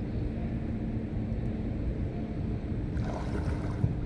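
Steady low wind rumble on the microphone. About three seconds in comes a short swish and splash of legs wading through knee-deep water.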